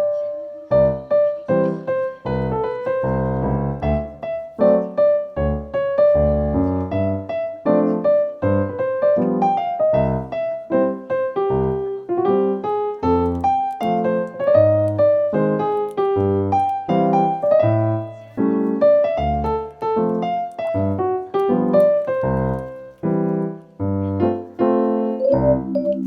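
Background piano music: a steady run of struck notes carrying a melody, without pause.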